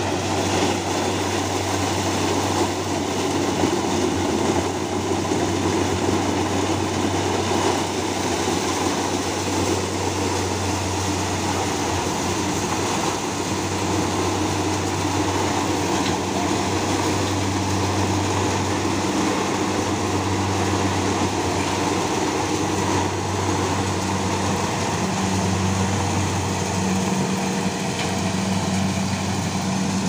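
Kubota crawler combine harvester running steadily while harvesting corn: a constant low engine hum with broad mechanical noise from the working machinery over it.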